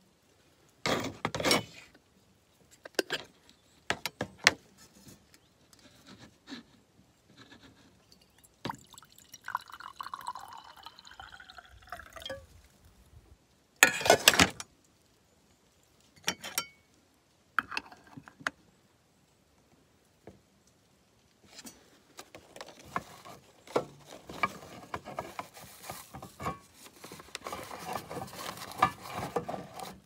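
Sharp metal clinks and knocks of aluminium moka pot parts being handled, with water poured into a metal vessel for a few seconds partway through. Near the end comes steady rustling and crinkling of a plastic bag being handled.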